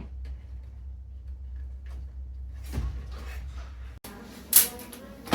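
Hands working at plastic parts and wiring inside a washing machine: scattered light clicks and a brief rustle over a steady low hum. After an abrupt cut about four seconds in, the hum is gone and two sharper clicks or knocks follow.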